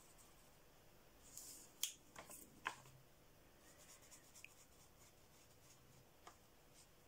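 Very faint scratching of an Arteza Twimarker's tip on colouring-book paper as it is worked in small circles, with a few light ticks between about one and three seconds in. Under it, twice, the faint low snoring of sleeping dogs.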